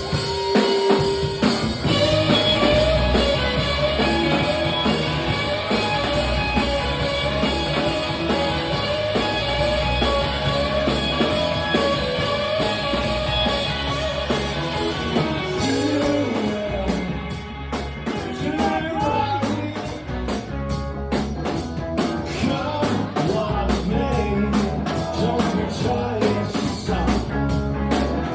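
Live rock band playing: drum kit and guitar, with a long held note through the first half and what sounds like singing later.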